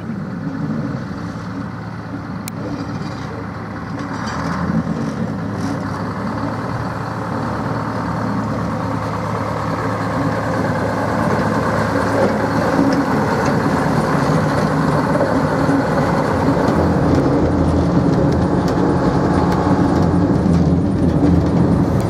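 Engine of the NZR TR-class shunting locomotive TR 81 running as it travels along the track, growing steadily louder as it draws near and passes close by.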